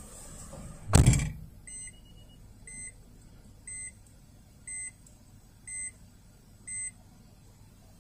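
A single loud thump, then a short electronic beep repeating about once a second, six times, like a warning beeper.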